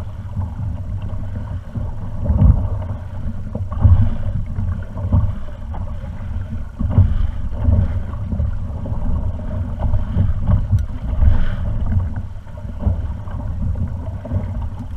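Wind rumbling on the microphone in gusts, with water washing and slapping against a kayak's hull now and then.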